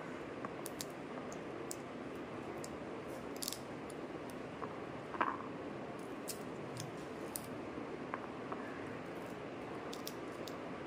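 Pomegranate arils being pried loose from the pith by hand: soft squishing and tearing with scattered small ticks of seeds dropping onto a plate, over a steady background hiss.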